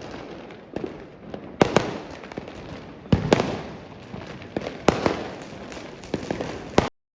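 Firecrackers going off: a string of sharp bangs at irregular intervals, loudest about one and a half and three seconds in, with crackling between. The sound cuts off suddenly near the end.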